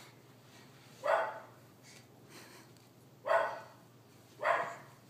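A dog barking three times, single short barks spaced a second or two apart.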